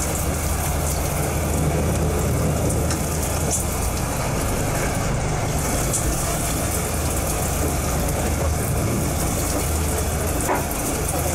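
A fishing boat's engine running steadily at idle, a low hum under a steady hiss of wind and sea.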